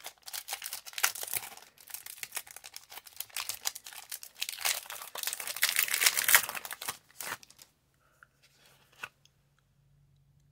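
Foil wrapper of a Pokémon booster pack being torn open and crinkled by hand, a dense run of crackling and tearing that stops about three-quarters of the way through. After that only a faint low hum remains.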